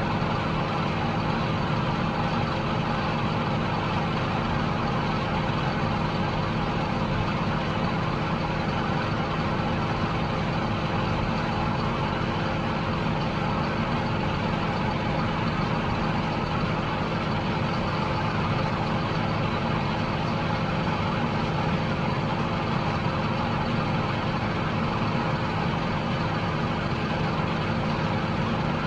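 Steady running of a large diesel harvest machine's engine, a constant hum with a layered machinery drone and no change in pace.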